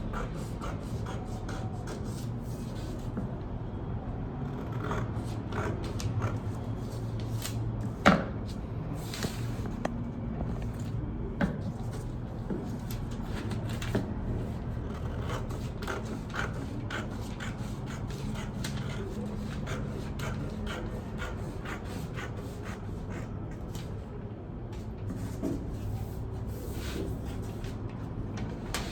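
Paper sewing pattern being handled and separated: scattered light clicks, rustles and scrapes over a steady low hum, with one sharper click about eight seconds in.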